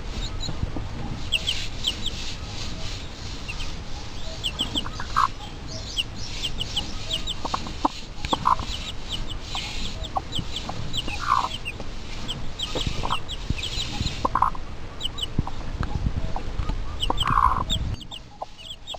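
Birds calling over a steady low background noise: small birds chirp in quick runs of short high notes, and a lower single call comes about every three seconds. The sound drops quieter shortly before the end.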